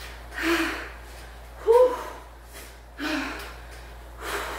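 A woman's heavy breathing from hard pedalling on a stationary exercise bike: forceful exhales or gasps about once every second and a quarter, with one louder voiced grunt a little under two seconds in.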